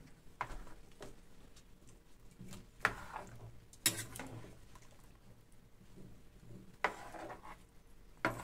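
A metal spoon stirring chunks of vegetables in a clay cazuela, knocking and scraping against the pot's rim and sides in about five sharp clinks spread a second or more apart.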